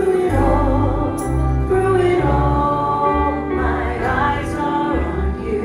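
Christian worship song: a woman singing into a microphone over accompaniment with a held, changing bass line.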